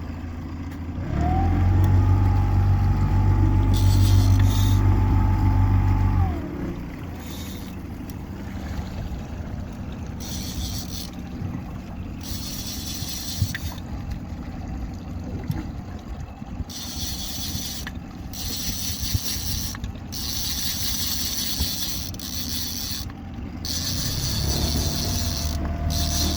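Fishing reel ratchet clicking in repeated bursts of a second or two as a hooked salmon takes line and is reeled in. About a second in, a motor hums loudly for about five seconds; its pitch rises as it starts and falls as it stops.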